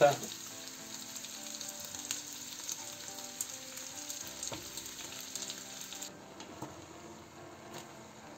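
Kiełbasa, onion and garlic sizzling in hot oil in a large steel pot while shredded young cabbage is tipped in and stirred with a wooden spatula, with a few light knocks. The sizzle cuts off abruptly about six seconds in.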